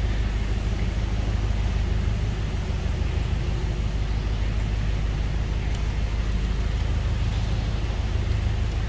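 Narrowboat engine running steadily with a low hum while the boat is under way inside a brick canal tunnel.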